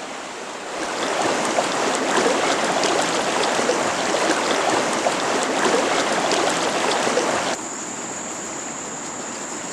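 Water splashing and churning for several seconds, then stopping abruptly near the end. A thin, steady high-pitched whine runs underneath.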